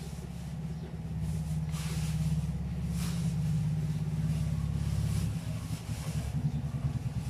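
Motorcycle engine idling close by, a steady low running sound that turns into a plainly pulsing beat in the last couple of seconds.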